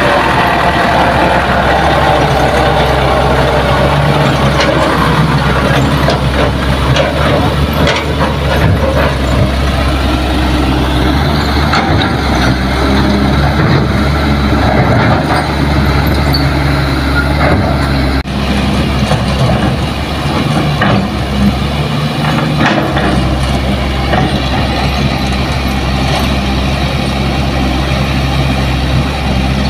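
Diesel engine of a small dump truck running steadily under load as the truck climbs a steep dirt track, with occasional knocks and rattles.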